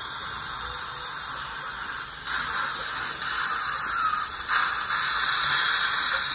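Dental instruments hissing in the patient's mouth: the water spray of a dentist's handpiece with air and suction, a steady hiss that grows louder about two seconds in and again a couple of seconds later.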